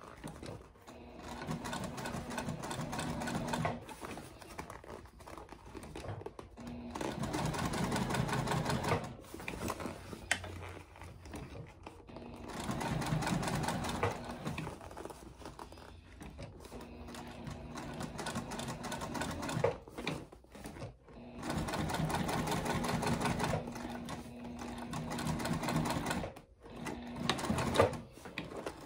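Juki TL-2010Q straight-stitch sewing machine stitching in short runs through a cork-fabric bag, stopping and starting every few seconds.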